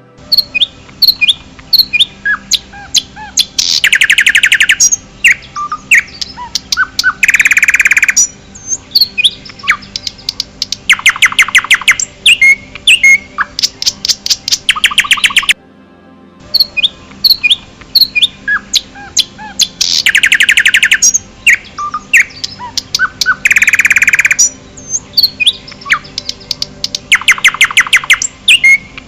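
Several wild songbirds chirping and singing, with repeated rapid trills among shorter chirps and whistles. The recording cuts out briefly about halfway and the same sequence of calls repeats, a looped track.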